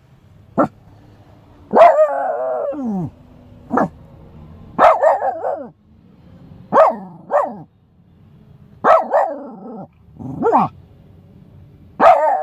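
Shiba Inu barking in irregular bursts, about ten barks, several drawn out into longer cries that fall in pitch. These are warning barks at a stranger coming too close.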